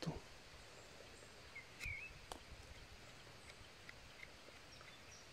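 Quiet woodland ambience, close to silence, with a single short bird chirp about two seconds in and a few faint ticks.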